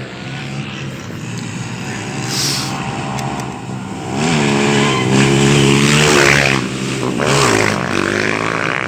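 Rally motorcycles passing at speed, their engines revving and stepping in pitch through gear changes. The sound builds about four seconds in and is loudest around five to six and a half seconds in.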